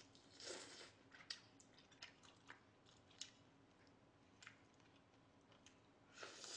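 Quiet, close-miked eating sounds: soft wet smacks and small clicks of a mouth chewing boiled duck meat, scattered every second or so, with a short airy breath about half a second in.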